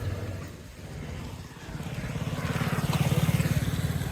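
Motorcycle engine running with a fast, even pulse. It grows louder from about halfway through, then eases off near the end.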